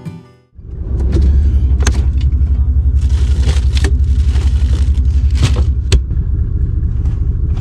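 Toyota LandCruiser 76 Series' V8 turbo-diesel idling with a steady, pulsing low rumble that comes in about half a second in. Over it come several sharp clunks of a fridge lid and the contents being handled, and a stretch of plastic-bag rustling.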